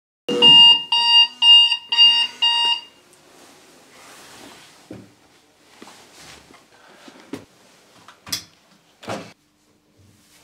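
An alarm clock beeps five times, about two beeps a second, and stops after about two and a half seconds. Then come faint rustling of bedclothes and a few short knocks and thumps as someone stirs and gets up.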